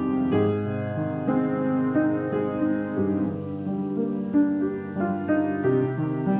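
Piano music, a slow piece with new notes struck every second or so.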